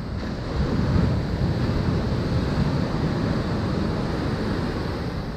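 Ocean surf washing up the beach, with wind rumbling on the microphone; the wash swells about a second in.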